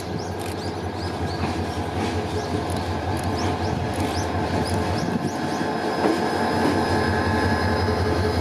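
Korail DEL4425 diesel locomotive running on its own, its diesel engine making a steady pulsing drone over wheel and rail noise. It grows gradually louder as it approaches.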